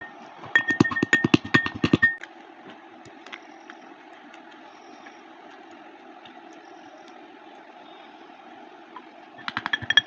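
Slime being squeezed and pressed, giving a fast run of crackling clicks and pops for about a second and a half. A quieter stretch with only a few faint ticks follows, and the crackling starts again near the end.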